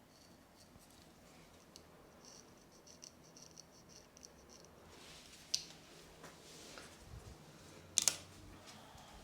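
Barber's scissors snipping: a fast, even run of light snips, then a couple of separate sharper clicks, the loudest near the end.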